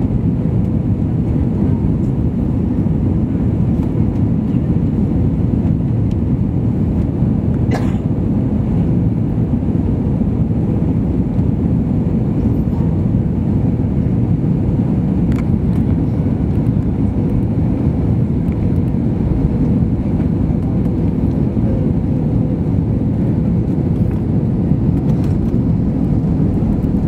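Steady engine and rushing-air noise heard inside the cabin of an Airbus A321 on final approach, with a faint steady hum and two light clicks, one about eight seconds in and another about fifteen.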